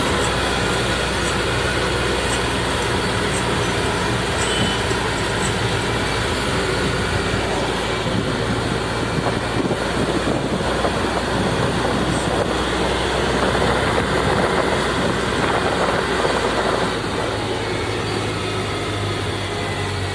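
A vehicle's engine running steadily, with tyre and road noise, heard from inside the cab while driving on a wet road. The low engine note changes slightly near the end.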